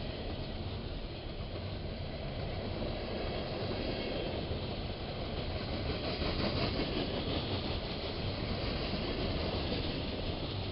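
A train rolling past on the rails: a steady rumble of wheels and cars that grows a little louder about six seconds in and eases off near the end.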